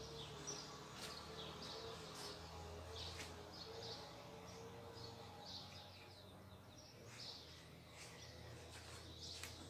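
Faint small birds chirping over and over in the background, with a few light clicks.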